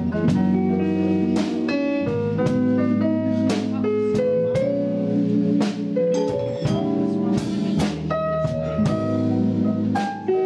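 Live band music: a Roland VR-09 stage keyboard plays a run of quick single notes over sustained bass, with drum and cymbal hits keeping time.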